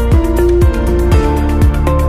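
Background electronic music with a fast, steady drum beat under held synth notes.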